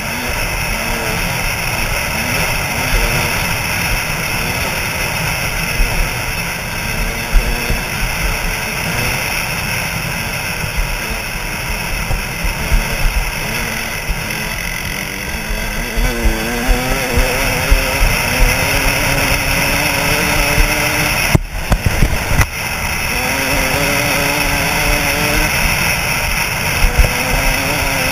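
KTM 200 SX two-stroke dirt bike engine running hard at speed, the pitch rising and falling with the throttle, under heavy wind rush on a helmet-mounted camera. Two brief gaps in the sound come about three quarters of the way through.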